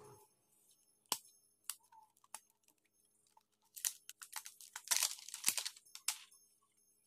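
Thin plastic protective film being peeled off a new smartphone's screen: a few sharp clicks, then about two seconds of crackling and crinkling, with light knocks of the phone being handled.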